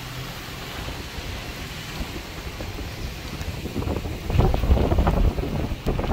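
Wind buffeting the microphone outdoors in a storm, a steady rush with low rumbling gusts that grow stronger about four seconds in.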